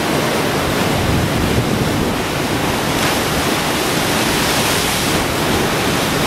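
Steady rushing of river water cascading over rocks into a pool.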